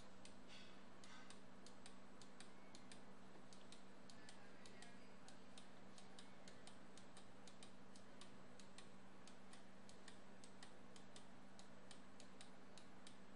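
Faint, uneven clicking of a computer mouse, about three clicks a second, over a low steady hum.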